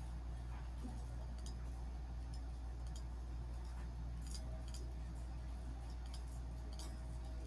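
Scattered computer mouse clicks, several of them in quick pairs, over a steady low hum.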